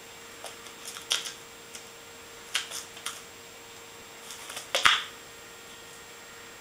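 Scattered soft rustles and light taps of kittens' paws scrambling and pouncing on a fabric blanket over a wooden floor. The loudest flurry comes about five seconds in and ends in a sharp knock.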